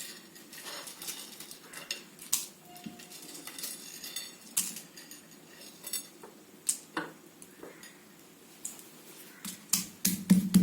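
Whole spices being pounded with a pestle in a mortar: irregular knocks and clinks, a few of them sharper strikes.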